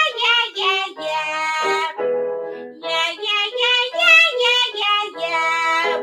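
A woman singing a bright, whiny 'yeah, yeah, yeah' pharyngeal exercise: quick repeated syllables stepping up and down a scale, with a held note about a second in and a short break near two seconds. A touch of vocal fry starts each syllable. The exercise is meant to bridge chest and head voice into a commercial mix.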